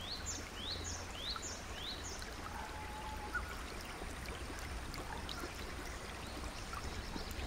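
Outdoor ambience: a steady hiss with a low rumble, and a bird giving a series of five short rising chirps, about two a second, in the first two seconds, with a few fainter calls later.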